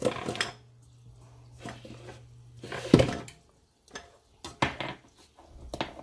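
A few separate clinks and knocks of a utensil against a stainless-steel pan of rice in oil, the loudest about halfway through. A low hum stops at about the same moment.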